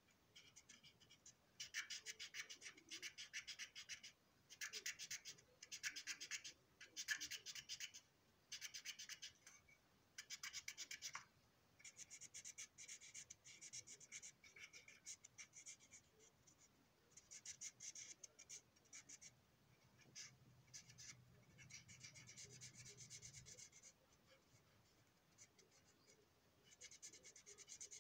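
Faint, rapid back-and-forth scratching of a coloring tool rubbed over the plastic body of an O gauge boxcar. It comes in bursts of a second or two with short pauses between them, and gets softer and more continuous after about eleven seconds.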